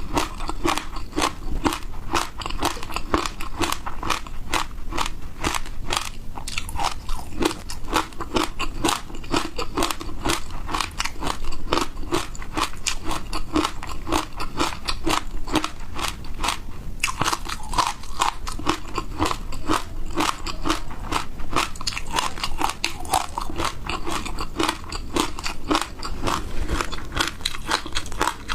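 Frozen ice being bitten and chewed close to the microphone, ASMR style: a continuous run of rapid, crisp crunches with no breaks.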